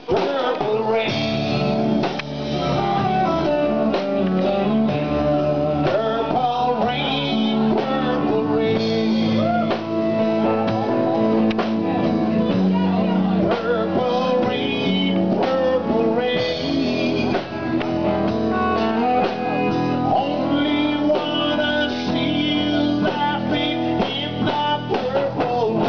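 Live band music: guitar playing with a singer's voice and drums behind, loud and continuous.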